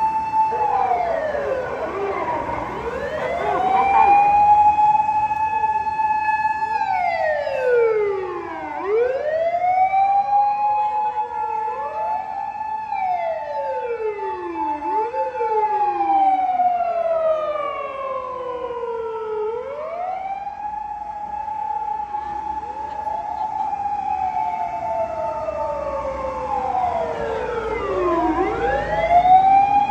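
Several fire engine sirens sounding at once and overlapping, each rising to a long steady tone, holding it for several seconds, then falling away before winding up again.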